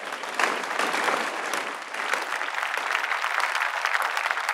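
Congregation applauding: dense, steady clapping from a large crowd that swells up in the first half second and then holds.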